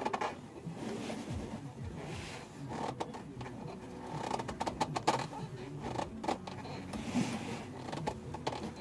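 Scattered light clicks, knocks and rustling of things being handled.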